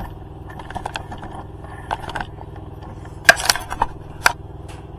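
Small clicks and scrapes of hand work on plastic clips holding a light in the fairing, with a cluster of sharp snaps about three seconds in and one more snap a second later, over a steady low hum.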